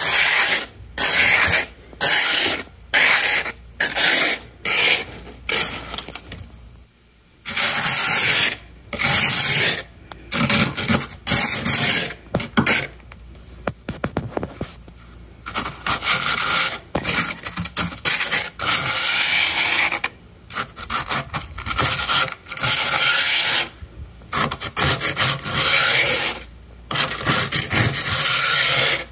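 A plastic scraper scraping thick frost off the inside wall of a freezer. It goes in repeated scraping strokes, short and quick at first, then longer and steadier after a brief pause about seven seconds in.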